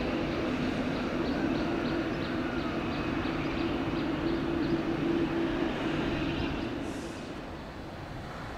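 Boeing 787 airliner's jet engines running at taxi power: a steady low hum over a broad rumble, fading in the last couple of seconds as the aircraft moves away.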